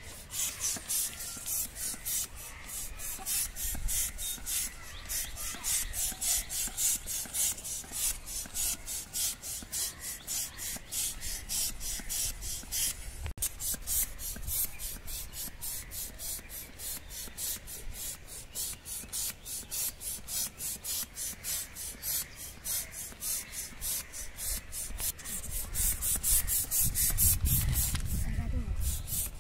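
Plastic hand balloon pump worked in quick, even strokes, each a short rasping hiss of air, about three a second, inflating a long rocket balloon. A louder low rumble joins near the end.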